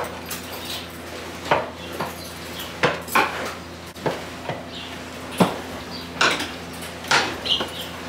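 Metal stall fittings and chains in a tie-stall dairy barn clanking as the cows shift, irregular ringing clanks about one a second, over a steady low hum from barn machinery.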